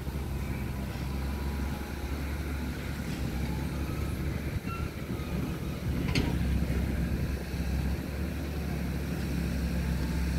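WAG9HC electric locomotive approaching, a steady low hum and rumble that slowly grows louder, with a sharp click about six seconds in.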